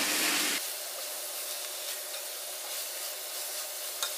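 Chopped vegetables frying in oil in a clay pot: a steady soft sizzle with the rub of a spatula stirring them, a little louder for the first half second. A couple of light clicks near the end.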